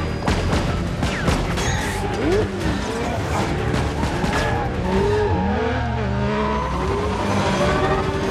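Film chase soundtrack: a supercar's engine and a motorcycle's engine revving, with tyre squeals rising and falling, over a music score.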